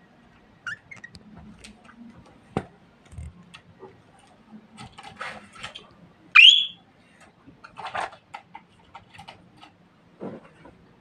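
Pet budgerigar gives one short, loud call that sweeps up in pitch, about six seconds in, among soft scattered clicks and rustles in the cage.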